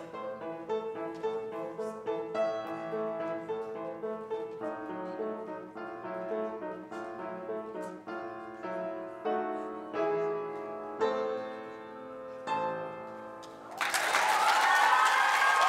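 Piano playing a run of notes and chords, closing on a few spaced-out chords; near the end the audience breaks into loud applause and cheering.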